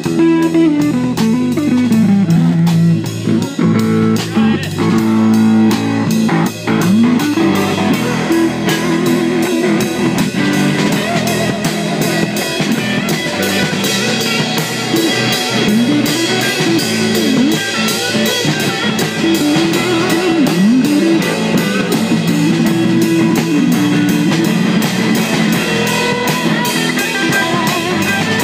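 Live band playing an instrumental passage: guitar lines with bends over bass and drums.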